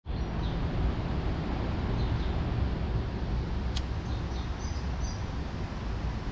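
Outdoor woodland ambience: a steady low rumble with a few faint bird chirps, and one sharp click a little past halfway.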